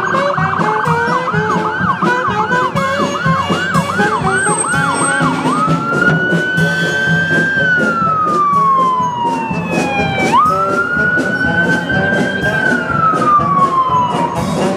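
Police cruiser's electronic siren: a fast yelp of about three rising sweeps a second, then about five seconds in it switches to a slow wail that rises and falls twice. Band music plays underneath.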